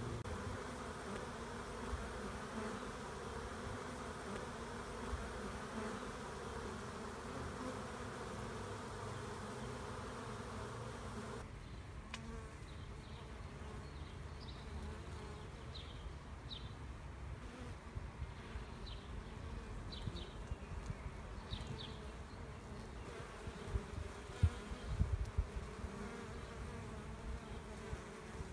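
Honeybee swarm clustered on a branch, a steady hum of many bees buzzing. A little before halfway the hum drops and thins, and short high chirps and a few low bumps come in later on.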